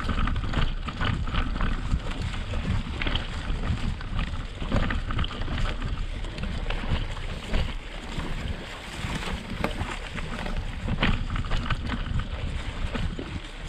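Mountain bike rolling over the gravel track bed of an old railway, heard through a handlebar-mounted camera: a constant low rumble with frequent irregular knocks and rattles, mixed with wind noise on the microphone.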